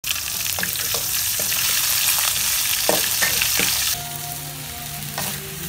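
Glass noodles with dried shrimp and wood ear mushrooms sizzling as they are stir-fried in an aluminium wok, a metal spatula scraping and clinking against the pan. The sizzle drops off about four seconds in, and faint steady tones come in.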